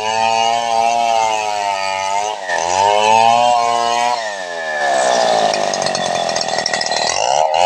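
Large home-assembled two-stroke chainsaw running hard while ripping lengthwise through a long felled log. The engine speed sags and recovers several times as the chain bites into the wood: once about two and a half seconds in, with a deeper drop at about four seconds, and again near the end.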